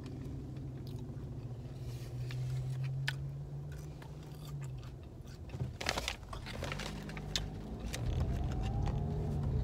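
Close-up chewing of cheese fries, with scattered small crunches and clicks and a sharper knock about six seconds in, over the steady low hum of the car's engine inside the cabin.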